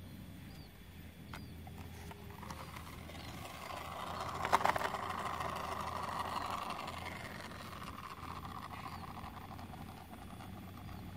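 A motor vehicle passing by, its noise building over a few seconds and fading away again. A short clatter of sharp clicks near the middle is the loudest moment.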